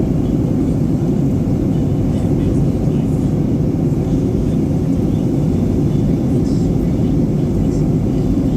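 Steady low cabin noise inside a Boeing 737-800 in descent: the drone of its CFM56 engines and the air rushing past the fuselage, unchanging throughout.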